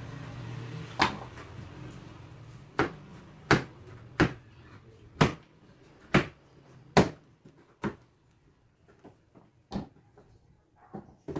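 Cleaver chopping papaya on a cutting board: sharp knocks of the blade about once a second, turning to lighter taps in the last few seconds.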